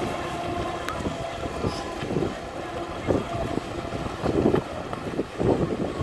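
Gusting wind buffeting the microphone, coming in uneven bursts, with choppy water around it; a faint steady hum fades out in the first second.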